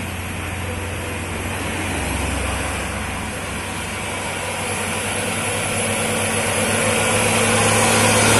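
Diesel engine of an approaching Isuzu cargo truck, running steadily and growing louder as it draws near, over tyre and road noise.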